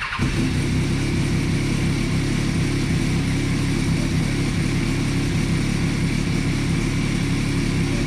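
Triumph three-cylinder sportbike engine firing up, then idling steadily at about 1,400–1,500 rpm.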